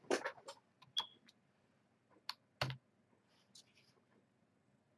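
Scattered clicks and taps of a computer keyboard and mouse, a few separate strokes rather than steady typing.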